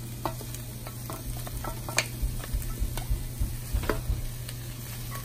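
Sweet pepper, onion, celery and cilantro sizzling as they sauté in margarine in a frying pan. A wooden spoon stirs them, knocking and scraping against the pan now and then, with a few sharper knocks.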